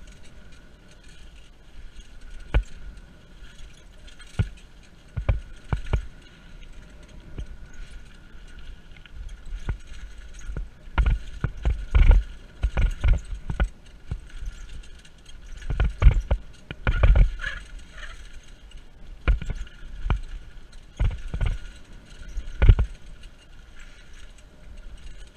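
Mountain bike riding fast along a leaf-covered dirt singletrack: tyres rolling over leaves and dirt with a steady rumble, broken by irregular knocks and rattles as the bike hits bumps, thickest through the middle of the ride.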